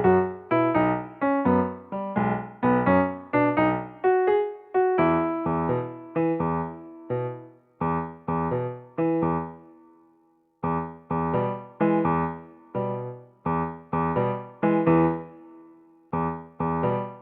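Background music: a keyboard playing a melody of separate struck notes, about two a second, each fading away. The music breaks off briefly about ten seconds in.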